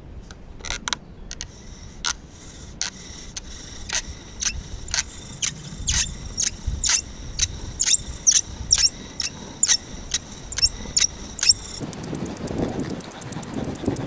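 Birch bow drill squeaking: the wooden spindle squeals in the hearth board on each stroke of the bow, about two squeaks a second, growing louder as the pace settles. The birch is damp and gives no ember. Near the end the squeaks give way to a quick rattling.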